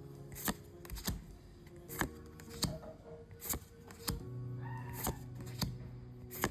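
Trading cards from a booster pack being flipped one after another. Each card gives a short sharp snap, roughly one every half second to second, over background music.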